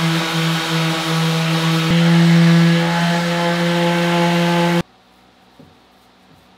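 Electric orbital sander running on a wooden panel: a steady motor hum under a grinding hiss. It cuts off suddenly about five seconds in.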